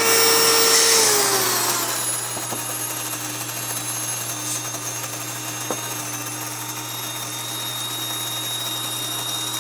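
Electric countertop grain mill grinding hard red wheat into flour, a loud motor whine that switches on abruptly, sags in pitch over the first couple of seconds as it takes up the load of grain, then runs steady.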